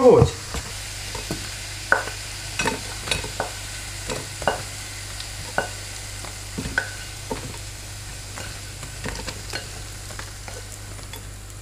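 A utensil scraping and knocking irregularly against a frying pan and plate as fried potato sticks are lifted out and served, over a steady sizzle of hot oil in the pan. The knocks thin out near the end.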